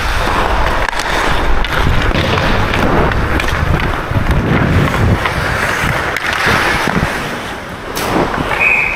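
Ice skates gliding and scraping on the rink with wind rushing over the microphone of a helmet-mounted action camera, and small clicks of stick on puck. There is a sharp knock about eight seconds in.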